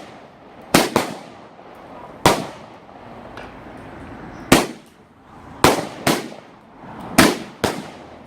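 Fireworks going off: about eight sharp, irregularly spaced bangs, each echoing away, two of them in quick pairs.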